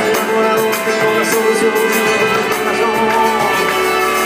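Live Latin rock band playing an instrumental passage: amplified guitars over drums and hand percussion, with a steady beat.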